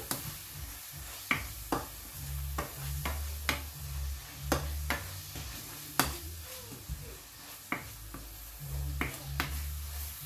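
Wooden spoon stirring minced beef in a frying pan, knocking against the pan at irregular intervals over a faint sizzle of the frying meat.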